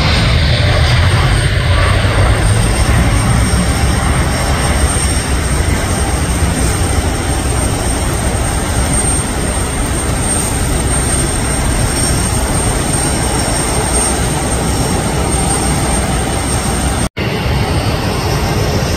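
Japan Airlines Boeing 787's jet engines at takeoff thrust: a loud, steady rush as the plane lifts off and climbs away, easing slightly. The sound drops out for an instant near the end.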